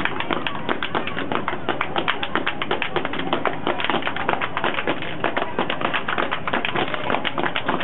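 A step team clapping hands and stomping feet in rapid unison, a steady rhythm of sharp claps several times a second.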